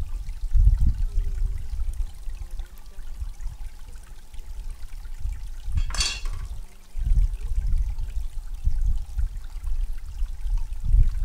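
Steel cleaver set down on a wooden chopping block with one sharp clack about six seconds in, over an irregular low rumble.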